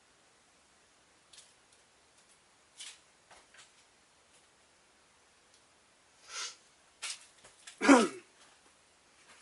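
Someone rummaging out of view: scattered faint clicks and rustles, then a few louder knocks. About eight seconds in there is one loud short sound that falls in pitch.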